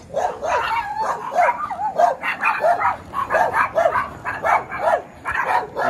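Small dogs barking at a passer-by: rapid, high yapping at about three barks a second, without a break.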